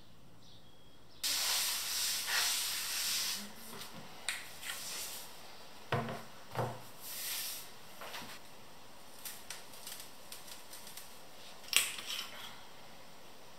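Hands handling a round copper tray: a few seconds of cloth rubbing hiss, then two dull knocks about six seconds in as the tray is set down on a wooden table, followed by light scattered ticks as salt is sprinkled onto the copper, and a sharp click near the end.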